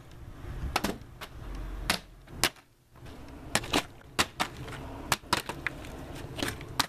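A plastic water bottle being flipped and knocking against a stone countertop, heard as a dozen or so short, sharp clicks and knocks at irregular intervals, with a cluster around the middle.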